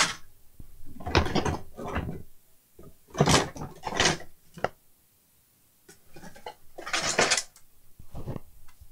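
Spare circuit boards and parts clattering and rattling as they are rummaged through, in several irregular bursts about a second long.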